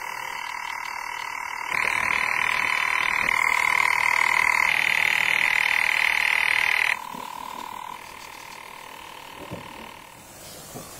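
A steady, high-pitched chorus of calling animals, louder from about two seconds in until about seven seconds in, then dying away about a second later, leaving a few faint knocks.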